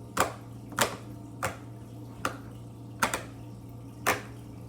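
Bubbles of a plastic poppet fidget toy being pressed and popped one at a time: six sharp pops, a little under a second apart, slowing slightly. A steady low hum runs underneath.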